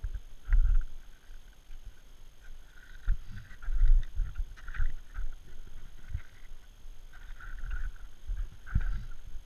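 Boots crunching up a snow slope with trekking-pole plants, in an uneven rhythm of soft thumps and short crunches, with some wind buffeting the microphone.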